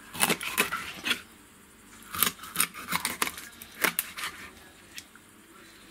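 Kitchen knife chopping a crucian carp into chunks on a plastic cutting board: a run of sharp cuts and knocks, a pause about a second in, then another run.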